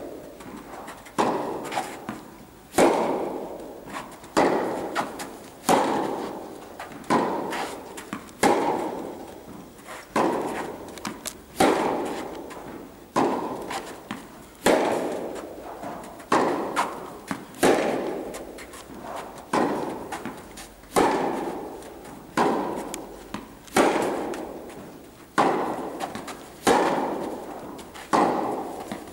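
Tennis balls struck back and forth with rackets in a forehand baseline rally, a sharp hit about every second and a half, each ringing on in the echo of an indoor tennis hall. The hits alternate louder and softer as the two players trade shots.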